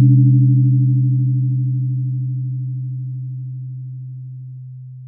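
A low 128 Hz therapy tone ringing and fading steadily after being struck, with weaker higher overtones that die away about four and a half seconds in.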